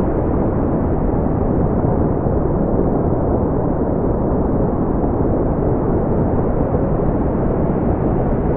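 Steady brown noise: a deep, even rumbling hiss, strongest in the lows and rolled off in the highs, with no changes.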